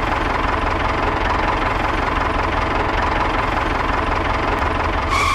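Small engine running steadily with a fast, even pulse; it cuts off abruptly at the very end.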